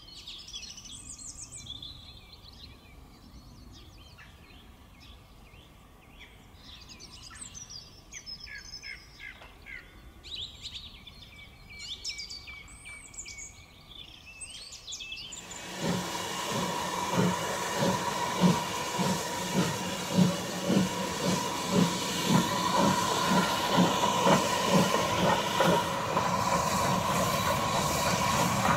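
Faint bird chirps, then from about halfway a sudden switch to a steam tank locomotive, USA-class 0-6-0T No. 30065, working past with its train: exhaust beats chuffing in a steady rhythm over a hiss of steam.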